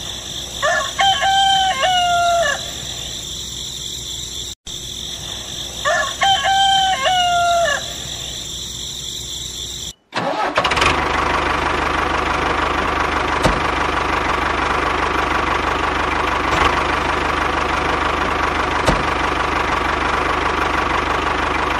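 A rooster crows twice, one long crow about a second in and another about six seconds in, over a steady hiss. After a sudden cut a little under halfway, an engine runs steadily with a faint high whine, broken by a few sharp clicks.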